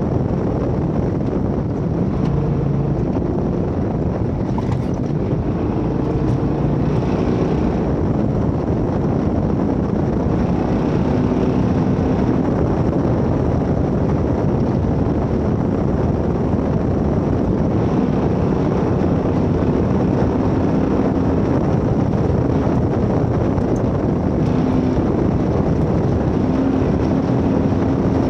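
Off-road vehicle driving, its engine running under a heavy, steady rumble of road and wind noise, with the engine's pitch shifting up and down.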